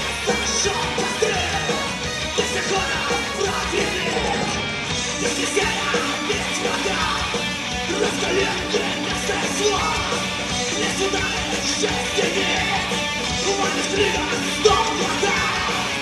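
Live heavy metal band playing: distorted electric guitar, bass guitar and drums, with the singer yelling and singing into the microphone over them.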